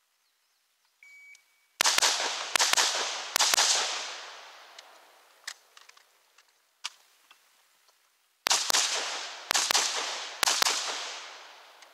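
A shot timer's start beep, then AR-style rifle fire in two strings of rapid shots, mostly fired in quick pairs, each crack trailing off in an echo across the range.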